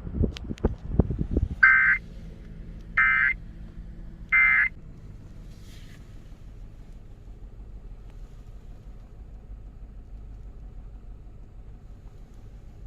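Emergency Alert System end-of-message data bursts from a NOAA weather radio broadcast: three short raspy bursts about a second apart, closing a high-wind warning. They are preceded by a few low thumps, and a steady low rumble follows.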